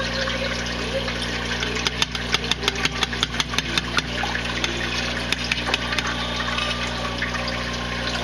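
Aquarium filter pump humming steadily over trickling water. About two seconds in comes a quick run of sharp clicks, about seven a second for two seconds, with a few scattered clicks after.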